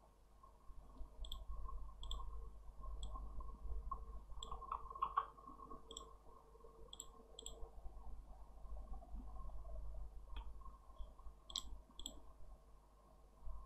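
Computer mouse clicking: about ten single, sharp clicks at irregular intervals, over a faint low hum.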